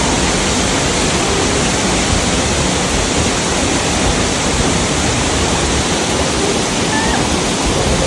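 Waterfall pouring: a steady, loud rush of water.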